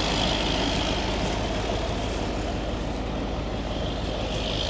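Farm tractor engine running steadily, a constant low hum with a steady high hiss over it.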